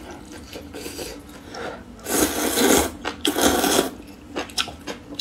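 A person slurping spicy noodles: two loud hissing slurps in the second half, each under a second long, followed by a few small clicks.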